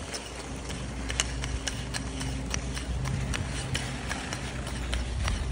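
A dog in booties trotting on rink ice: irregular clicks and taps of its paws on the ice, over a steady low hum.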